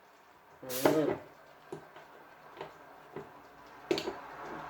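Light clicks and taps of things being handled, with one brief, louder burst about a second in.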